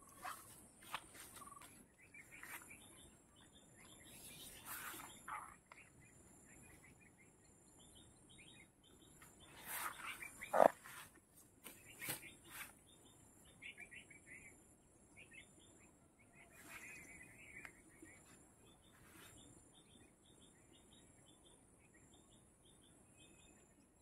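Faint birdsong of short, repeated high chirps over a steady high insect buzz, with scattered brief rustles and knocks, the loudest about ten seconds in.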